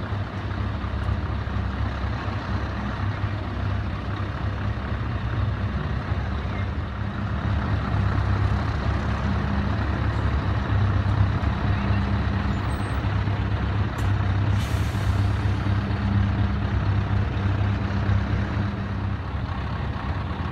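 Scania 164L's V8 diesel engine running at low revs as the tractor unit rolls slowly past, its deep note swelling and easing. A short hiss of air from the air brakes about two-thirds of the way through.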